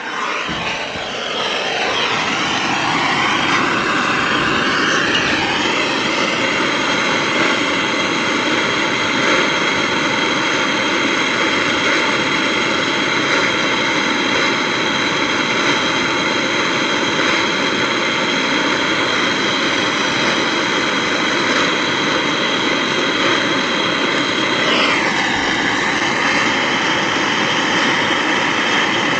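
Brazing torch flame roaring steadily as copper refrigerant-line joints are heated for brazing, with a brief shift in its pitch near the end.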